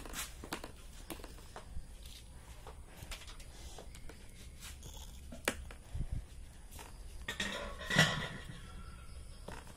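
Handling noise from a phone being carried along: scattered light knocks and scrapes, with a louder clatter about eight seconds in.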